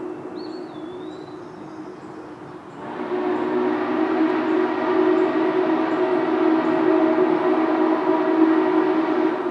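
Steam whistle of Norfolk & Western 611, a 4-8-4 J-class steam locomotive, sounding a sustained chord as it approaches the crossing. The chord softens about half a second in, then swells back to a long loud blast from about three seconds in.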